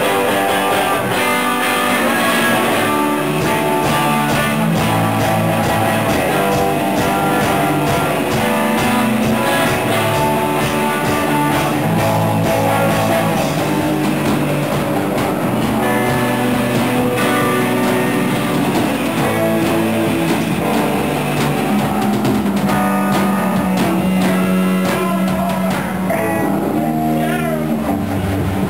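A rock band playing: electric guitars over a drum kit keeping a steady beat.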